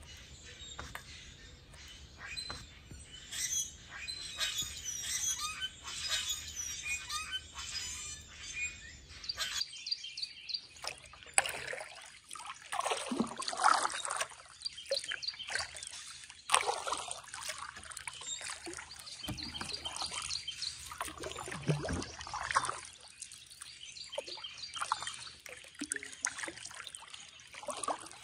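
A chorus of many birds chirping and singing for about the first ten seconds. Then kayak paddle strokes, with water pouring and trickling off the paddle blades at irregular intervals while birds keep calling.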